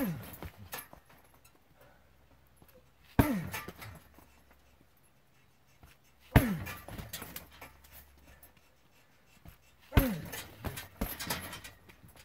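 Kicks landing on a hanging heavy bag: four hard thuds about three seconds apart, each trailed by a short falling tone and some rattling.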